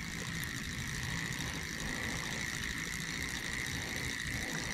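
Electric trolling motor running steadily: a low hum with a constant high whine.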